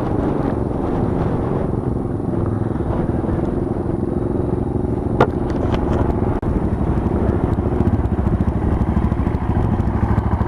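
Monkey bike's small single-cylinder engine running on a ride, a steady rumble with a single sharp click about halfway and a brief drop in level shortly after.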